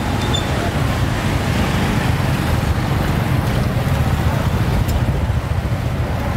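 Street traffic with a steady low rumble of engines as motor scooters, cars and an auto-rickshaw pass close by.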